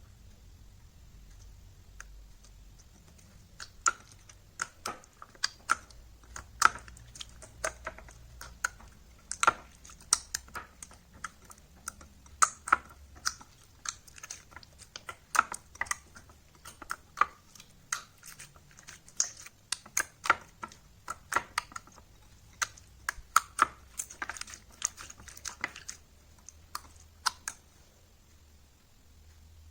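Slime being squeezed and poked by hand, giving irregular sharp clicks and pops, several a second. They start a few seconds in and stop shortly before the end.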